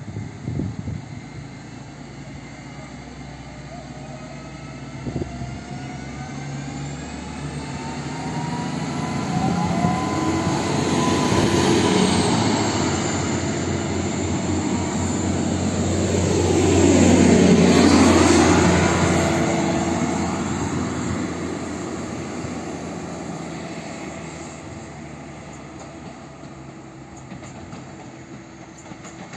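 Newag Impuls 2 electric multiple unit pulling away from the station: the traction motors whine, rising in pitch as it speeds up. The sound swells as the train passes, with wheel and rail rumble, and then fades as it runs off.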